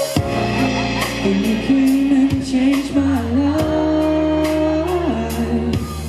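Live pop-ballad performance: a male voice sings a long, sliding melody line over a backing track with bass, guitar and regular drum beats.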